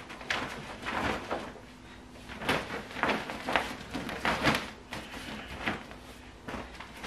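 A clear plastic rain cover crinkling and rustling in irregular bursts as it is pulled and stretched over a pushchair's carrycot.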